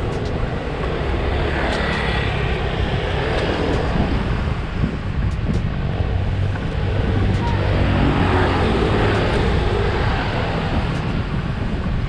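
Riding noise from a motorcycle moving along a road: a steady mix of engine and wind rushing past the microphone, a little louder about two-thirds of the way in.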